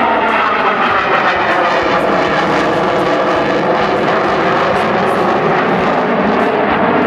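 Jet engines of a formation of F/A-18 Hornets flying overhead: a loud, steady roar.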